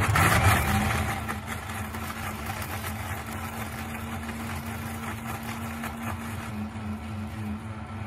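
Electric kitchen mixer grinder (mixie) switching on and running steadily, its motor humming at one even pitch under the hiss of dry soapnut shells, shikakai and vetiver root being ground to powder. It is loudest just after starting, as the pieces are first broken up.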